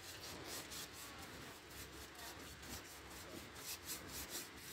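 Paintbrush scrubbing paint onto canvas in brisk back-and-forth strokes, about four a second, in a few runs with short pauses between them.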